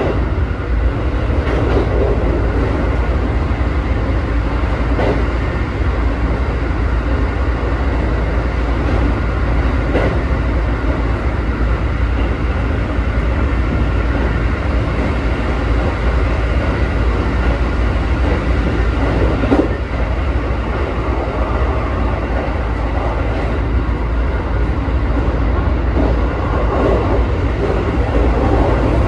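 Keikyu 1000 series electric train with Mitsubishi full-SiC VVVF traction, running steadily at speed as heard from inside the car: constant rolling and motor noise with a faint steady whine. There are occasional knocks of the wheels over rail joints, about four in all.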